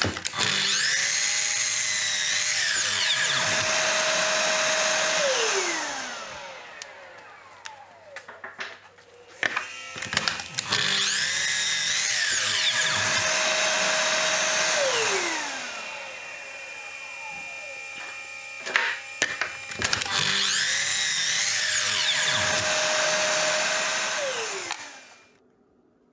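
Sliding compound miter saw run three times: each time the motor spins up with a rising whine, the blade crosscuts a slice off a small fumed oak block, and the motor winds down with a falling whine when the trigger is released.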